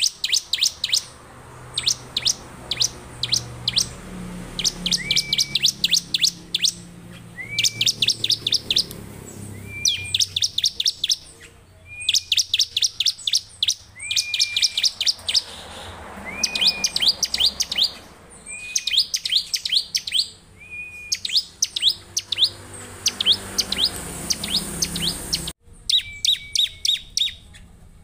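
Bar-winged prinia (ciblek) singing persistently, phrase after phrase. Each phrase is a short level whistle and a fast run of sharp, high, falling chips, repeating about every two seconds.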